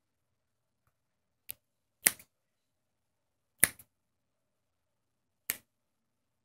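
Four sharp clicks a second or two apart, the loudest two each followed closely by a fainter second click.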